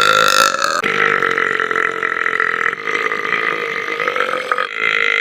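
A person belching: one long, loud, drawn-out burp held for several seconds, with an abrupt break about a second in and another near the end.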